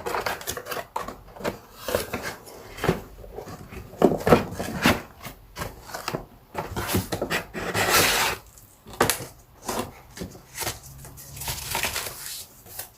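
Unboxing handling: a string of irregular knocks, clicks and rustles as a robot vacuum cleaner and its packaging are taken out and handled, with a longer rustle about 8 seconds in.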